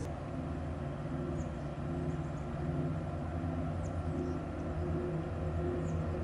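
Distant ship's engine on the river, a low steady drone with a faint thin whine above it. A few short, faint high bird chirps come over it.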